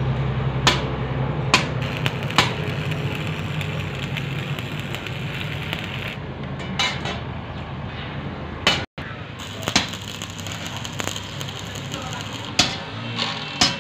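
Stick (arc) welding on steel channel: the steady frying crackle of the welding arc, over a low hum in the first few seconds. Sharp taps come now and then, and the sound drops out for a moment about nine seconds in.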